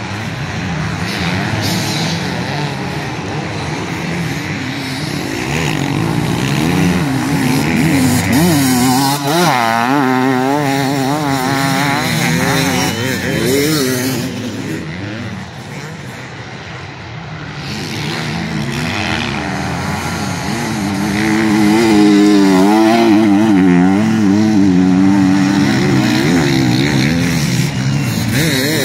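Enduro motorcycles racing past, engines revving up and down hard as the riders work the throttle. One bike goes by about a third of the way in, the sound dips in the middle, and a louder one passes from about two-thirds in.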